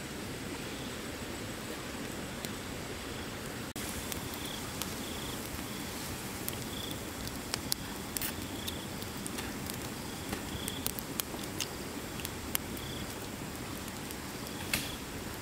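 Wood fire crackling in sharp, scattered pops under a wok, over a steady wash of flowing river water, with short high chirps repeating every second or so.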